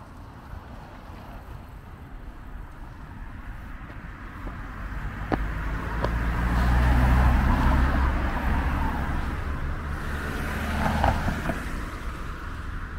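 A car driving past on the road: engine rumble and tyre noise swell to their loudest about seven seconds in, then fade.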